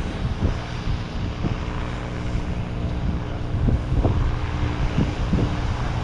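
Wind buffeting the microphone in gusts, with a steady low engine drone underneath, most noticeable in the second half.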